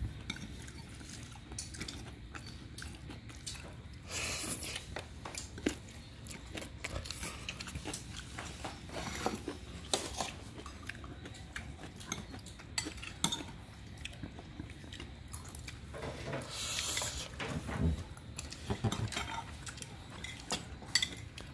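Metal spoon scraping and clinking against a ceramic plate as rice and fried pork are scooped up, in irregular light clinks and scrapes.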